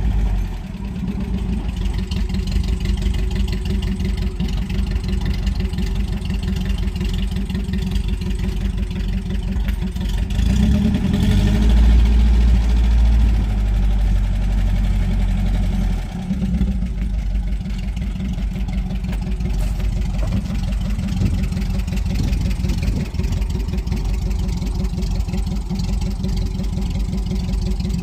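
UAZ Bukhanka van engine running steadily at idle, louder and deeper for a few seconds from about ten seconds in, then settling back.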